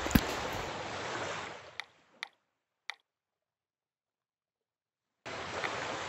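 Rushing, wave-like whoosh sound effect of an animated outro transition, with a sharp click just after the start and a few short blips as it fades out. The audio then drops to dead silence until a second whoosh starts abruptly near the end.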